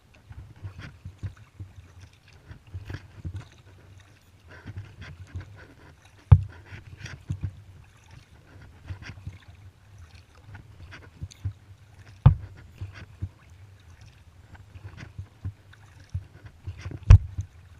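Kayak paddling: the paddle blades dip and splash in a steady rhythm, with water dripping and a low rumble underneath. Three sharp, much louder knocks stand out, about six, twelve and seventeen seconds in.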